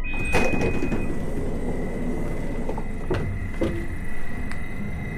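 An S-Bahn train's sliding passenger door opening after its push button is pressed, over a steady high tone and the train's running noise. A few sharp clicks follow later, as people step out onto the platform.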